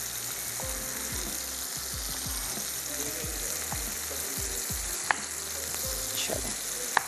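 Food sizzling steadily in hot oil in a pan, with a knife chopping tomatoes on a cutting board in irregular soft taps. A single sharp click comes about five seconds in.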